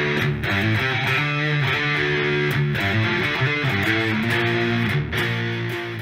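Guitar-led instrumental intro music, beginning to fade out near the end.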